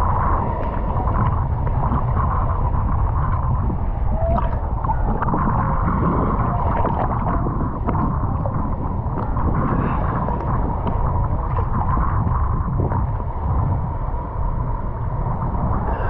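Choppy sea water sloshing and splashing against a camera held at the surface, with a steady low rumble and a faint steady hum underneath.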